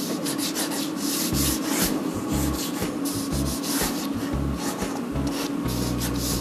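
Fineliner pen scratching across paper in a quick series of sketching strokes, each stroke a short dry rasp, several a second at times.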